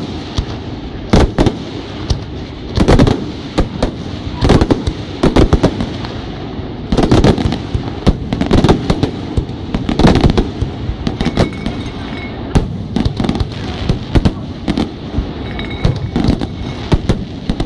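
Fireworks display: shells bursting in loud bangs at irregular intervals, sometimes several in quick succession.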